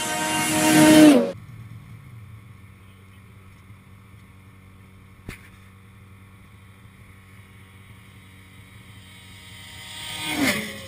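Ski-Doo MXZ-X 800 two-stroke twin snowmobile running at full throttle on a speed run. Its high-revving engine grows louder and dips slightly in pitch, then cuts off abruptly about a second in. Near the end another snowmobile comes in fast and passes, its engine pitch dropping sharply as it goes by.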